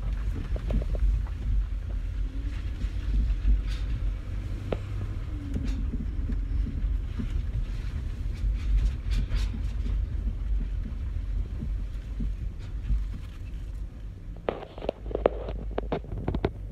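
Low, steady rumble of a Range Rover driving along, heard from inside the cabin. Near the end come a few short clicks or knocks.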